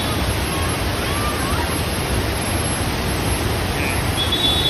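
Flash-flooded waterfall rushing, a steady, dense noise of fast-moving water. A brief high tone sounds near the end.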